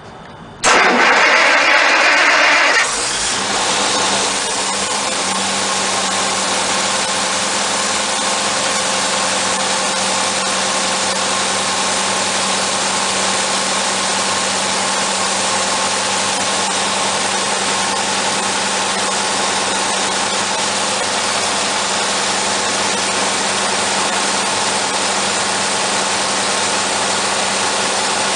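Hercules 320 cu in flathead six, the upper engine of a Michigan TLDT20 truck crane, starting about a second in with a louder couple of seconds. It then runs steadily on all six cylinders, freed after being stuck.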